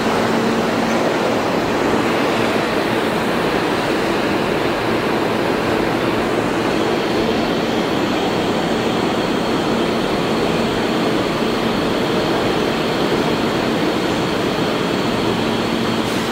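New York City subway trains in an underground station: a steady, even roar of train noise, with a local train standing at the platform.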